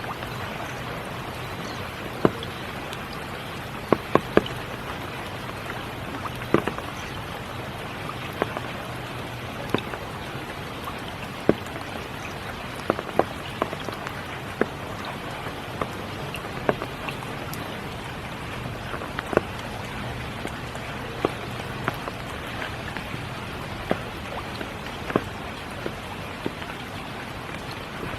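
Spring rain falling steadily, an even patter with louder single drops striking close by at irregular moments, about once a second.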